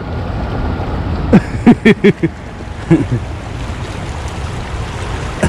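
Wind rumbling on the microphone as a steady low noise, with a few short voiced sounds from a man, words or grunts, about one and a half to three seconds in.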